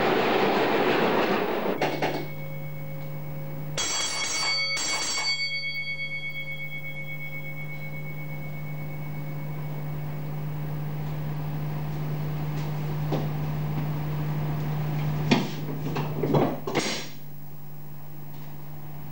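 A freight train of covered hopper wagons rolls past, its wheels rushing and clattering on the rails, until it cuts off abruptly about two seconds in. A steady low hum follows, with two short ringing tones about four seconds in and a few knocks near the end.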